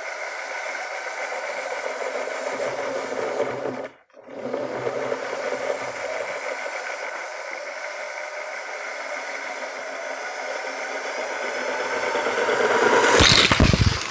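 Lego 9V train motor whirring, with a rattle of the train on plastic track. The sound cuts out for a split second about four seconds in, then grows steadily louder as the train comes closer and ends in a loud clatter right at the microphone.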